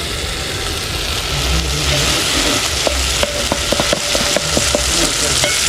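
Chopped onions sizzling in hot oil in a pan, the sizzle growing louder about two seconds in. A run of light clicks from a spoon stirring against the pan comes in the middle.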